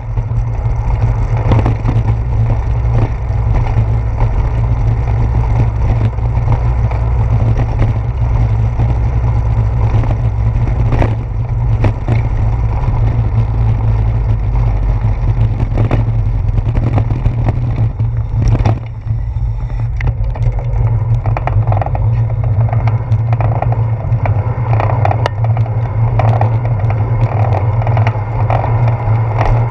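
Bicycle rolling over wet brick pavers and asphalt, heard from a handlebar-mounted camera: a steady low rumble with frequent knocks and rattles from bumps in the road.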